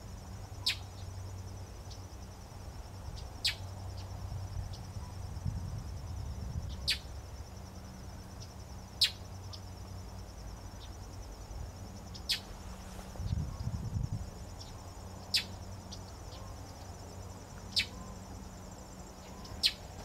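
Steady high trilling of insects, with a bird's short, sharp chip note falling in pitch eight times, every two to three seconds, over a low hum.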